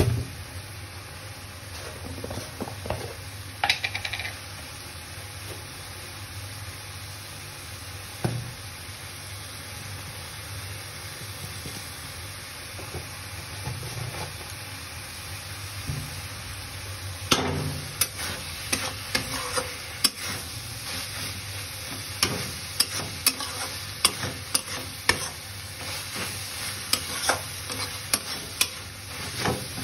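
Sliced onions and tomatoes frying in spices in a kadhai, with a steady sizzle. A few knocks early on, then from a little past halfway a steel spatula stirs the vegetables, scraping and clicking against the pan many times.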